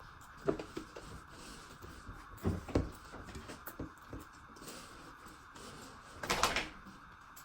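Eating sounds at a meal: a few soft knocks and clicks, then about six seconds in a louder, half-second crunching or slurping mouth noise, over a steady faint background hiss.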